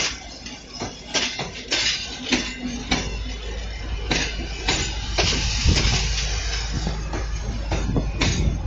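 Passenger coaches rolling past close by, their wheels clattering irregularly over rail joints. A low rumble grows from about two and a half seconds in.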